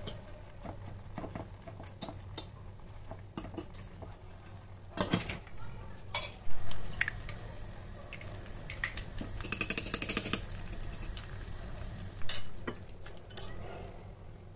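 Metal fork and utensils clinking and scraping against steel cooking pans, in scattered knocks and clicks. Through the middle a steady sizzling hiss of an egg frying in hot oil.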